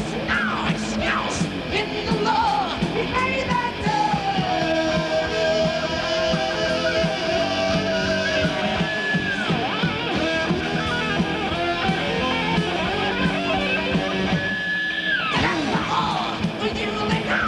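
Heavy metal band's recording: distorted electric guitar, bass and drums, with singing over it. A long high note is held for several seconds, and near the end the band drops out briefly under a high note that then slides down before the full band comes back in.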